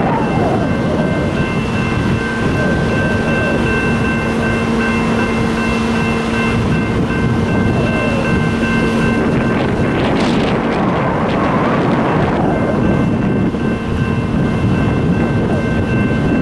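Fire hose stream spraying water onto burning scrap metal in a railroad gondola car: a steady rushing hiss, with an engine running under it as a steady hum and wind on the microphone. The hum drops out for a few seconds past the middle, when the rush swells.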